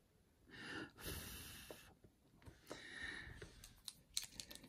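Faint breaths close to the microphone, three soft swells, followed near the end by a quick run of small light clicks from handling on the table.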